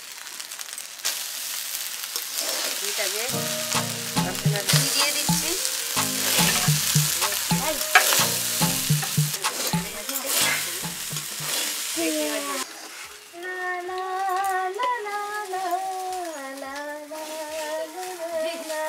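Vegetable fried rice sizzling as it is stirred and tossed with a flat metal spatula in a metal kadai, the spatula scraping and knocking on the pan, for about the first twelve seconds. After that the sizzle fades and a sustained melodic tune takes over.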